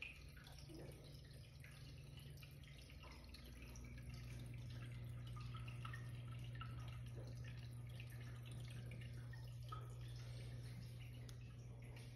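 Water trickling and dripping in a home aquarium, faint, over a steady low hum.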